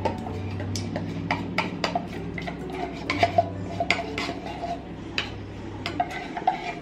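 A spoon stirring condensed milk in a container, clinking and scraping against its sides in irregular sharp clicks, about two or three a second.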